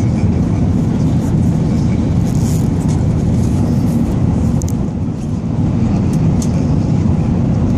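Airbus A380 cabin noise in flight, heard from a window seat: the engines and the airflow over the fuselage make a steady, deep rumbling roar.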